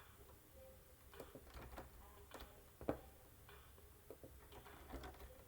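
Near silence: low room tone with faint scattered clicks, one sharper click about three seconds in.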